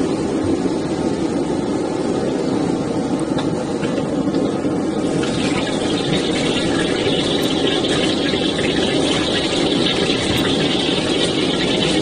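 Gas wok burner running with a steady rushing noise under a wok of hot oil. About five seconds in, a loud sizzle starts in the wok and keeps going while it is stirred with a ladle.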